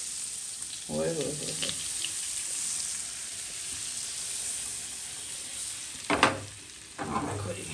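Butter and oil sizzling steadily in a hot nonstick frying pan as the butter cubes melt and bubble. There are a few short louder sounds about a second in and near the end.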